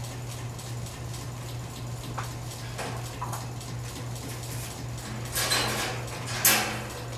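Metal wire dog crate clinking and rattling as a puppy moves about inside and the crate front is handled: a few light clicks, then a rustling scuffle and a sharper clink near the end.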